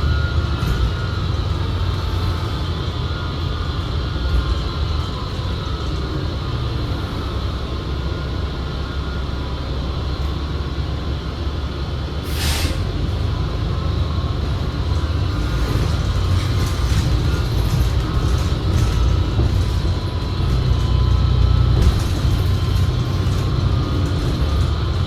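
Interior ride noise of a 2019 New Flyer XD60 articulated bus under way: a steady low rumble with thin, steady high tones over it, the odd drivetrain sound that the rider puts down to the transmission. About halfway through comes a short hiss of air.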